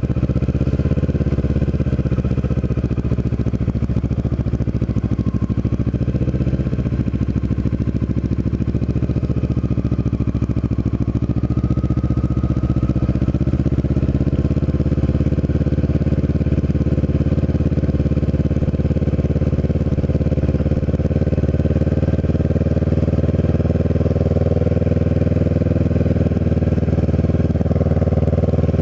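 Kawasaki Ninja 650R's parallel-twin engine running steadily as the motorcycle rides along slowly, with only small changes in pitch.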